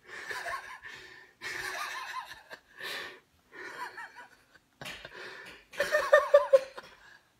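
A person laughing in several short fits, the loudest about six seconds in as a quick run of about five pulses.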